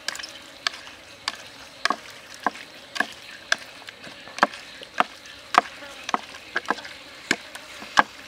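Whole raw squid being squeezed and mixed by hand in a chili and seasoning marinade: short, wet squelching clicks, about two a second.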